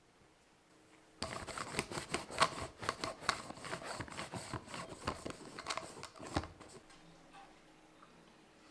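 Sticky lint roller rolled over a fabric sofa cushion, its adhesive sheet crackling. The crackle starts about a second in and dies away after about six seconds.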